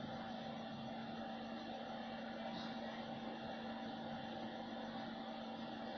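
A faint, steady machine hum over a hiss, unchanging, with no knocks or rattles.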